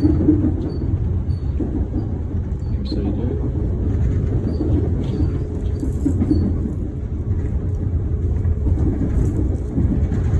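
Melbourne suburban train running: a steady low rumble with some faint high ticks.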